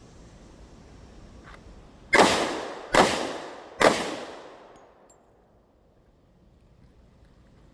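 Three handgun shots fired a little under a second apart, each ringing out with a short echo.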